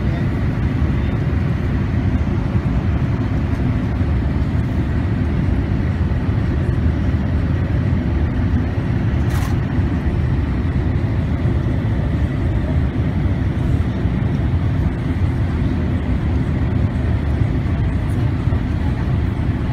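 Steady cabin noise of a Boeing airliner in descent: the low, even rush of its GE turbofan engines and airflow, heard from inside the cabin by the window, with a faint steady whine over it. One brief click about halfway through.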